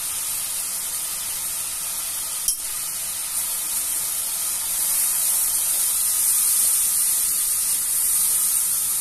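Butter and oil sizzling in an aluminium wok with chopped garlic and spring onion, stirred with a spatula: a steady high hiss with a single click about two and a half seconds in, a little louder from about five seconds in.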